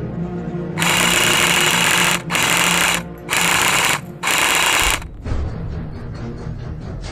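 Four loud bursts of rapid automatic fire, the first the longest and the rest under a second each, over background music.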